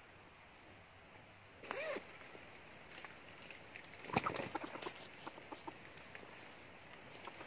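A single short call from a red junglefowl about two seconds in, then dry leaves crackling and clicking as the trap is handled by hand, loudest around four seconds in.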